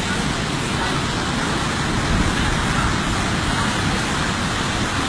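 Steady roar of a fast, turbulent brown floodwater torrent rushing past.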